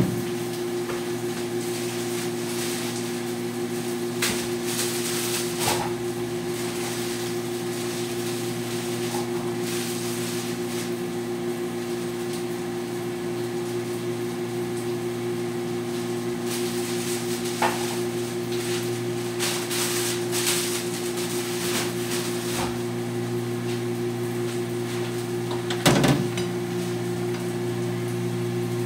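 A steady electrical hum from a running kitchen appliance or motor, broken by a few light knocks; the loudest knock comes near the end.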